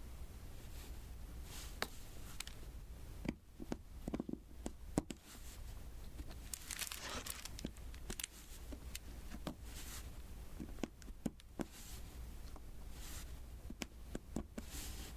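Diamond painting: small, irregular clicks and taps as resin drills are picked up and pressed onto the sticky canvas, with a brief crinkling rustle about seven seconds in.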